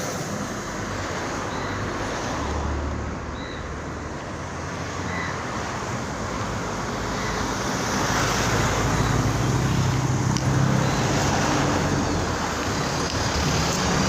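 Road traffic on a wet road in the rain, with a steady hiss. A vehicle engine hum grows louder about halfway through, and a few faint short high calls come early on.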